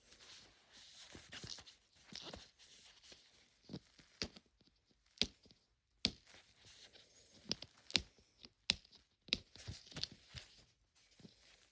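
Plastic wrapping on a Mini Brands capsule ball crinkling and tearing as it is unwrapped by hand, with scattered sharp plastic clicks and taps.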